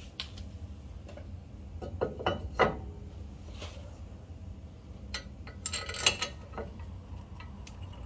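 Metal parts clinking and knocking as a new wheel hub bearing assembly is fitted into the steering knuckle and its bolts are started by hand. A few sharp clinks come about two seconds in and a cluster of them around six seconds.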